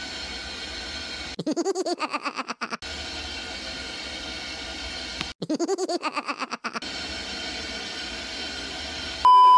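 Steady background hiss and rumble, broken twice by a fast-pulsing noise that rises and then falls in pitch for a second or so each time. Near the end a loud steady beep tone, an edited-in bleep, cuts in.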